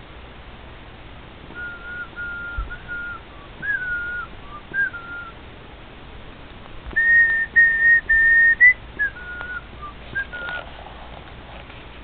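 A whistled tune of short clear notes, with a run of three longer notes held on one higher pitch about seven seconds in, then a few more short notes.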